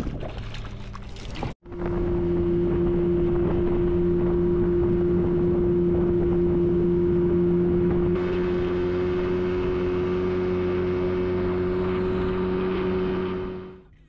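A boat's outboard motor runs under way at a steady, unchanging pitch, with water and wind noise under it. It starts abruptly about a second and a half in and fades out near the end.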